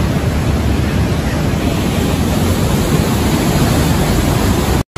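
Steady, loud rushing of a swollen, flooding river torrent. The sound breaks off for an instant near the end and then goes on unchanged.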